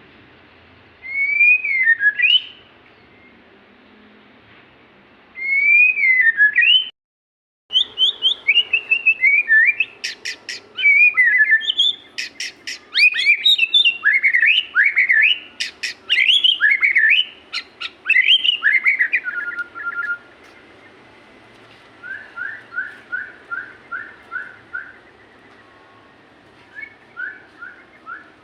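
Murai (Copsychus songbird) singing: two short whistled phrases, then a long run of fast, varied sweeping and chattering notes, then strings of short repeated falling notes near the end. The sound drops out briefly about seven seconds in.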